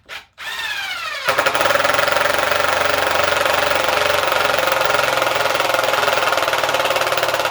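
Cordless impact driver driving a long wood screw into a treated 2x6. The motor spins up with a rising whine, then about a second in the impact mechanism starts hammering in a loud, rapid, steady rattle as the screw is driven home.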